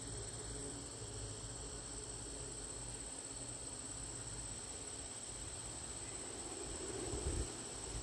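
Steady, high-pitched chorus of insects singing, unbroken throughout, with a few low bumps near the end.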